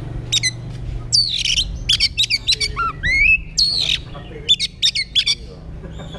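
Oriental magpie-robin singing a loud, varied song of sharp clicking notes, quick downslurred whistles and a rising whistle, with a steady low hum underneath.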